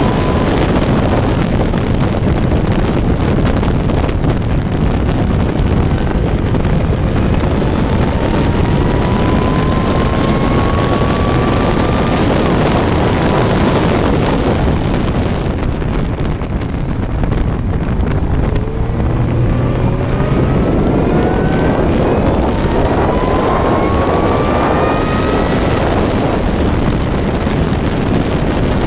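Onboard sound of a racing engine at full throttle, its pitch climbing steadily in long runs as it pulls through the gears, over heavy wind noise on the microphone. About halfway through it eases off and drops in level briefly, then climbs in pitch again.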